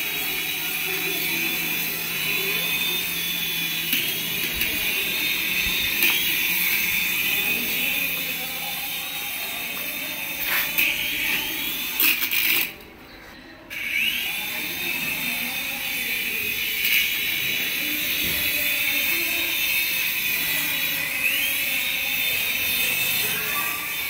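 Toy RC helicopter's small electric rotor motors whining at a steady high pitch, rising in pitch several times as the throttle is pushed up. The whine cuts out for about a second about halfway through, then climbs back up.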